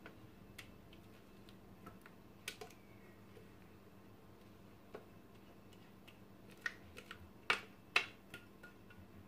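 Spatula scraping thick pastry cream out of a stainless-steel Thermomix bowl into a glass bowl: faint, scattered clicks and scrapes, with two sharper clicks close together about three-quarters of the way through.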